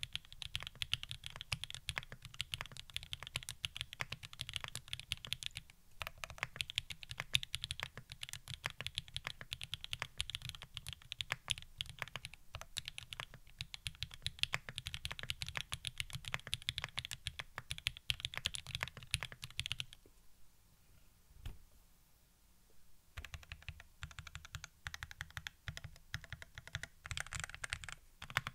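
Typing on a Sangeo60 gasket-mount custom mechanical keyboard with lubed SP-Star Polaris Grey switches, aluminium plate, plate foam and GMK Laser keycaps: a fast, dense run of keystrokes. About two-thirds of the way through the typing stops for a few seconds, with a single key press, then resumes as slower, scattered key presses.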